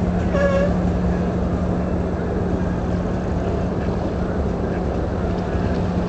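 Steady low marine engine drone with a constant hum, under wind rumbling on the microphone. A brief call about half a second in.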